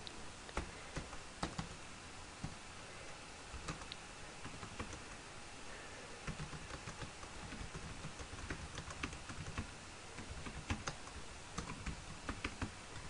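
Quiet typing on a computer keyboard, irregular key clicks as notes are entered into a form.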